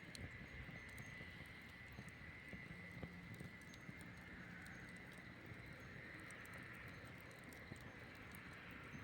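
Campfire crackling quietly: irregular small pops and snaps over a soft steady hiss.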